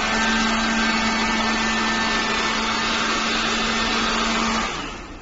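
Cold spark machine spraying a fountain of sparks on its 5-second timer: a loud, steady rushing hiss with a steady hum under it, dying away near the end.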